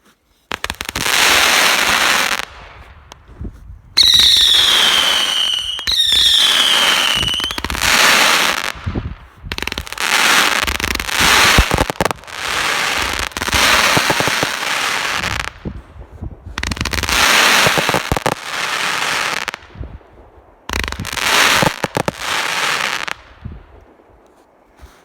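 Three consumer fireworks lit together, firing in volleys of rapid shots and bursts with short gaps between them. Two whistles fall in pitch about four and six seconds in, and the firing dies away near the end.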